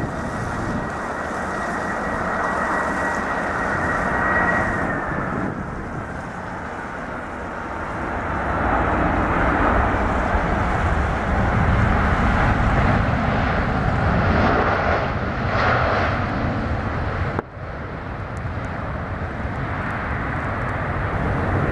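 Boeing 747-400 freighter's four jet engines on landing: a steady high whine over the engine rush on final approach, then louder, fuller engine and air noise as it rolls out along the runway. The sound breaks off abruptly for a moment about two-thirds through, then carries on.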